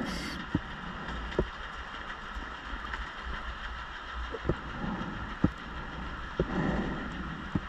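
Underwater ambience heard through a camera housing on a deep wreck dive: a steady muffled hiss with sharp clicks every second or so and a few short, low rushes of sound.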